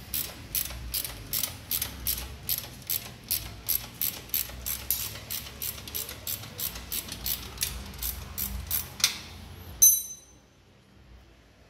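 Hand ratchet wrench clicking steadily, about four clicks a second, as a bolt on the rear suspension arm mount is turned. About ten seconds in, a single loud metallic clink rings briefly.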